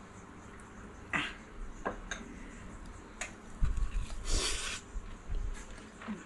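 Close-up eating sounds: a few light clicks of a spoon scooping rice, then a bite of a seaweed-wrapped piece of soy-marinated salmon with a short, louder wet smack a little past the middle, followed by chewing.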